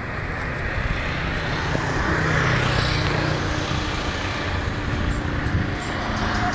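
Road traffic noise: a vehicle passes, its sound swelling and fading about two to three seconds in, over a steady hum of traffic.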